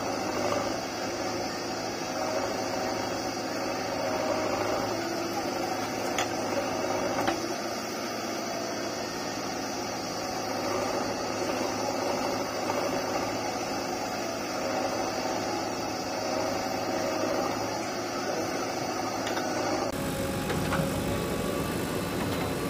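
Diesel engines of a JCB 3DX backhoe loader and a farm tractor running steadily as the backhoe loads earth into the trolley. The sound changes abruptly near the end to a different engine note.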